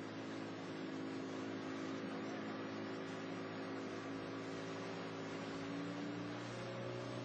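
Small motorboat's engine running steadily, a low droning hum with water rushing under the hull, its pitch shifting slightly near the end.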